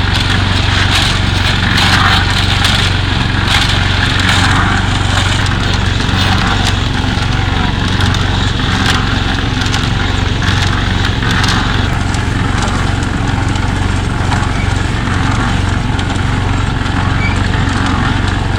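Small engine of a portable concrete mixer running steadily, with scraping and knocking over roughly the first twelve seconds that then thins out.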